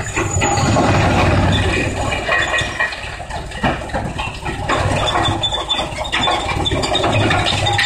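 Industrial wood pallet shredder, a belt-driven electric drum chipper, running with a steady mechanical noise and a pulsing low throb. Sharp cracks and knocks sound as wood from the conveyor is chipped, the clearest a little past the middle.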